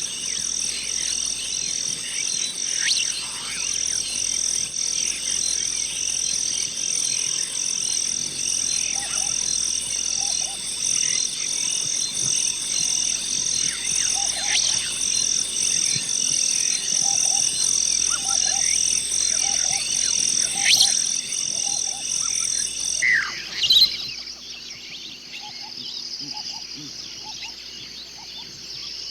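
Crickets chirping at night: a loud, steady, high chirping pulsing about once a second over a continuous higher trill, with occasional short bird chirps and brief low croaking calls. About 23 seconds in the loud chirping cuts off, leaving a softer steady insect trill.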